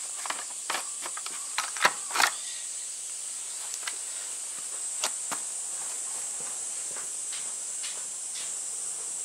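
A few sharp clicks and knocks as a backpack brush cutter is handled and left standing on the floor, mostly in the first two seconds, with a few fainter ones later. A steady high-pitched hiss runs underneath.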